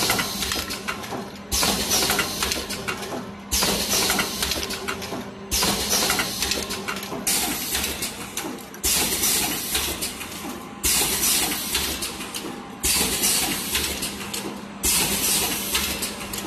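Automatic coffee capsule filling and sealing machine running through its cycle: a sudden burst of air hiss and clatter from its pneumatic cylinders and indexing table about every two seconds, each fading before the next, over a steady low hum.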